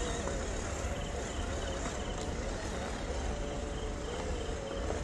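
Electric motor and gearbox of a WPL C24 1/12-scale RC Jeep Wrangler whining as it crawls over river stones, the pitch wavering with the throttle, over a low rumble of wind on the microphone.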